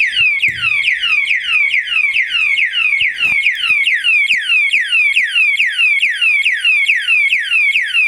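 Motion-sensor anti-theft alarm padlock sounding its 110 dB siren after being jostled. It is a loud electronic wail of rapidly repeated falling sweeps, about three a second.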